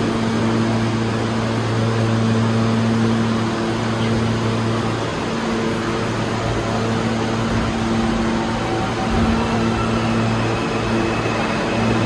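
Steady electrical hum and air-conditioning noise of a New York City subway train standing in the station. The hum fades for a few seconds in the middle under a low rumble, then comes back.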